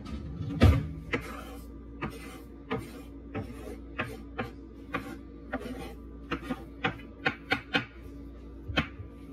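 Kitchen knife chopping on a wooden cutting board: sharp separate knocks at about one or two a second, coming closer together near the end, with one heavier thump near the start.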